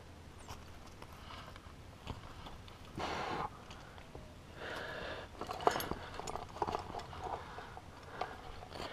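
A climber's heavy breathing, with two loud breaths about three and five seconds in, while the metal trad rack on the harness clinks and rattles in short clicks through the second half.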